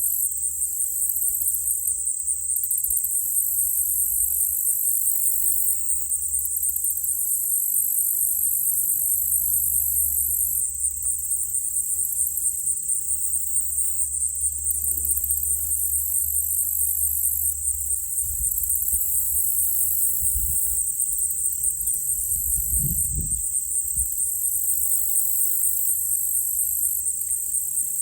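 Chorus of night insects trilling in a steady, fast, high-pitched pulse, over a low steady rumble. A few dull low thumps come about two-thirds of the way through.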